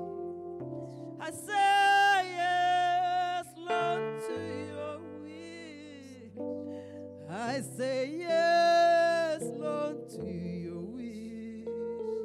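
Gospel worship singing: a woman's voice holding two long, high notes with vibrato, about two seconds in and again around eight seconds, over sustained instrumental chords.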